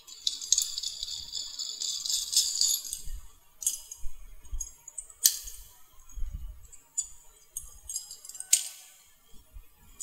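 Metal parts of a cylindrical door knob lock rattling and clicking as they are handled and pushed together. A jingling rattle fills the first few seconds, then come a few separate sharp clicks.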